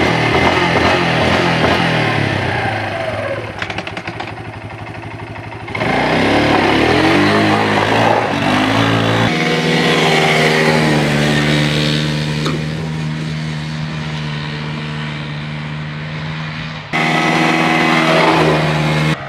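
Small ATV engine revving and running under way, its pitch rising and falling, then holding steady for several seconds. The sound changes abruptly a few times where clips are cut together.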